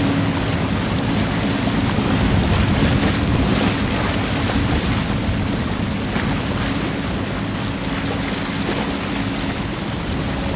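Steady jet engine roar of a Boeing 777-289 airliner with a low hum under it, mixed with wind noise on the microphone.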